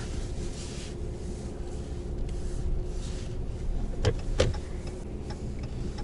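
Low, steady running of a 2019 Ram 2500's Cummins 6.7-litre inline-six turbo-diesel while it tows a gooseneck trailer. Two sharp clicks come about four seconds in, a third of a second apart.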